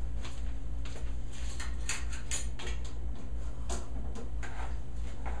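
Steady low electrical hum, with a few light clicks and taps scattered through it.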